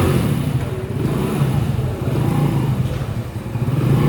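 Hero Splendor Pro motorcycle's small single-cylinder four-stroke engine running, its level rising and falling a few times as it is revved lightly.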